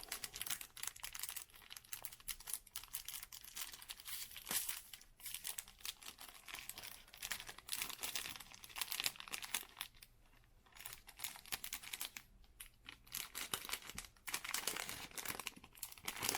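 Wrapper of a trading card box-loader pack crinkling and tearing as it is opened and handled, in irregular crackles with a short pause about two-thirds of the way through.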